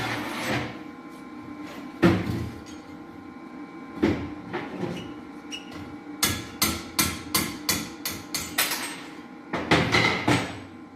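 Hammer striking a steel driver tool set against weld blobs on valve seat inserts in a Chrysler 4.7 cylinder head, to knock the seats out. A few separate blows come first, then a quick run of about ten strikes, then a few more near the end, over a steady hum.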